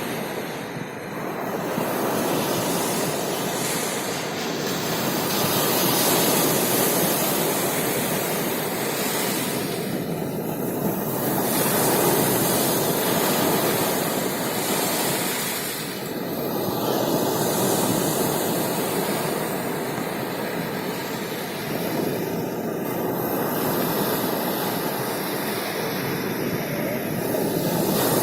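Rough sea waves breaking and washing in, a continuous rushing noise that swells and eases every five or six seconds.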